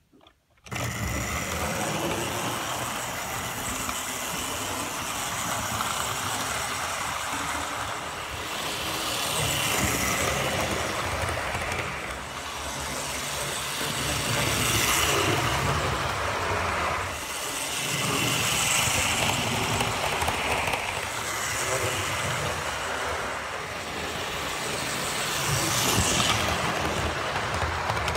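Hornby model locomotive, an LNER B12 steam engine hauling Gresley coaches, running on model railway track: a steady whirr and rumble of its electric motor and wheels on the rails. It starts about a second in and swells and fades every few seconds.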